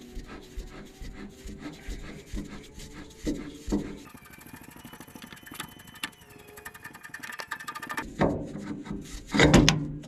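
An old spin-on hydraulic filter being unscrewed by hand from its mount on a bulldozer winch: light clicks and metal rubbing as it turns, with louder knocks and scraping near the end as it comes free.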